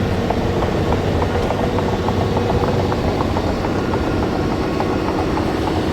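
A semi-truck's diesel engine idling steadily, a constant low drone.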